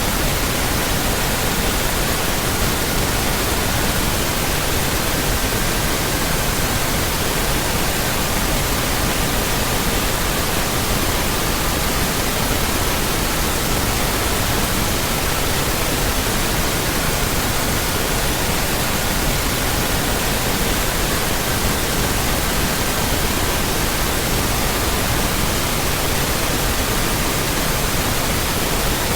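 Steady synthetic pink noise, an even hiss. Faint steady tones from the 1200, 1320, 1440 and 1555 Hz set sound under it, one at a time, stepping to a different pitch every few seconds.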